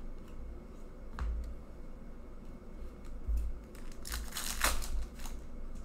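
A foil trading-card pack wrapper being slit and torn open, crinkling in a quick cluster of rustles about four seconds in, after a faint click of cards being handled about a second in.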